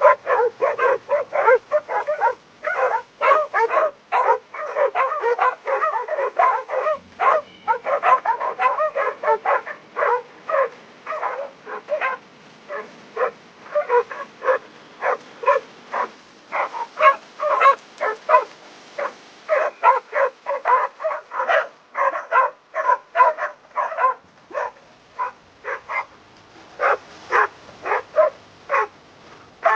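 Dogs barking rapidly, several barks a second with almost no pause; the barks crowd together and overlap in places.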